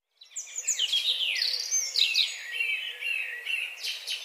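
Small songbirds chirping and twittering, many quick rising and falling calls overlapping.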